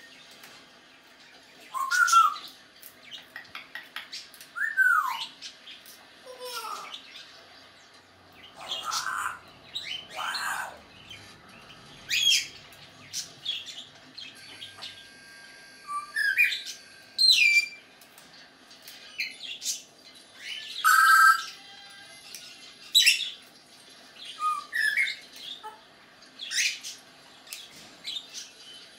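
African grey parrot giving a string of short whistles, clicks and harsher calls, a second or two apart, several of the whistles gliding downward in pitch.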